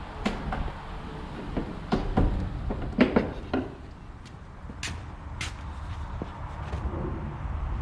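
Irregular light knocks and clatters of a freshly bent aluminum wrap piece being handled and fitted against a garage door frame. They are busiest in the first few seconds, with two sharper clicks about five seconds in.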